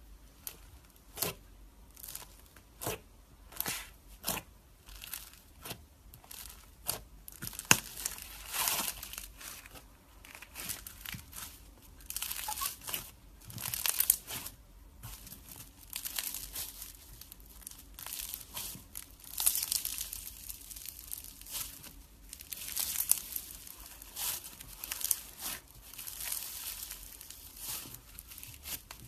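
Hands poking and squeezing slime studded with small beads. At first there are sharp sticky pops about once a second; after that come denser bursts of crackling and crinkling as the slime is pressed and stretched.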